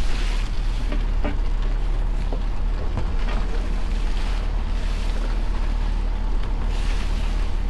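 Sounds aboard a small boat on open water: a steady low rumble with wind buffeting the microphone and water noise, plus a few faint knocks.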